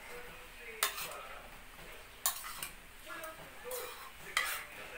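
Small hard parts being handled, clinking and knocking, with four sharp clicks spaced irregularly over a light rustle. These are typical sounds of flat-pack furniture hardware and panels being handled.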